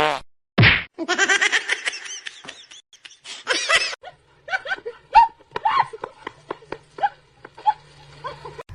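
People laughing in short, repeated bursts.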